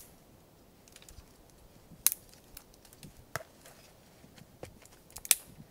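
Dry twigs snapping as kindling is broken by hand: four loud, sharp cracks spaced one to two seconds apart, with smaller snaps and crackles between.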